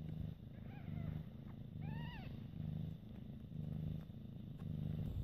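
Persian cat purring in a slow, even rhythm, about one breath a second, with newborn kittens nursing. A kitten gives two short, high mews that rise and fall, about one and two seconds in.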